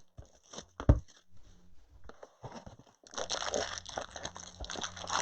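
Plastic wrapping crinkling and tearing as sealed trading-card boxes or packs are opened by hand, with a few sharp clicks near the start. The crinkling grows dense about three seconds in.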